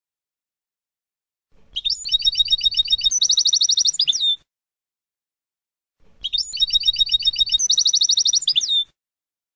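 European goldfinch song of the Palestinian 'Abu Khalil' type, a phrase sung twice with a pause between. Each phrase opens with high slurred notes, runs into a fast rattling trill of about ten notes a second and ends on a falling note.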